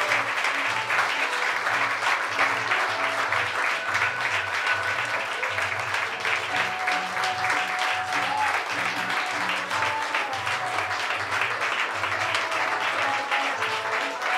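Theatre audience applauding at the end of a play: dense, steady clapping from a full room, with music playing under it that has a low bass line of notes changing about twice a second.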